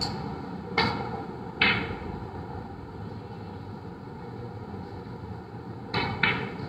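Snooker shot: a sharp click as the cue strikes the cue ball, then under a second later a louder click as the cue ball hits an object ball. Two more sharp knocks come close together near the end, over a steady background hum.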